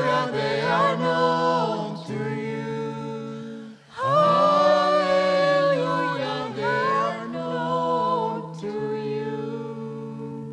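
Mixed men's and women's voices singing a cappella in close harmony, holding long sustained chords as a hymn's final cadence. A second, louder phrase enters about four seconds in, and the voices fade near the end.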